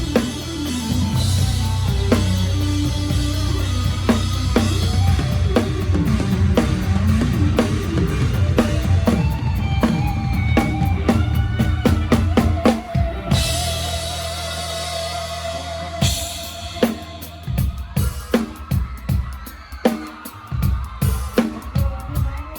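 Drum kit played live with a band, kick drum, snare and rimshots carrying the beat over bass and held instrument notes. Near the end the full band drops back and the drum strokes stand out on their own.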